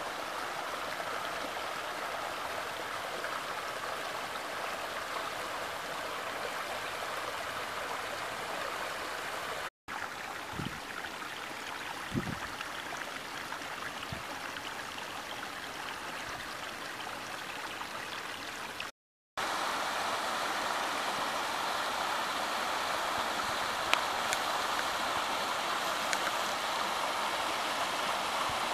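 Rain-swollen woodland creek rushing and splashing over small rock cascades: a steady rush of water. It grows louder about two-thirds through, where a larger cascade runs in full flood.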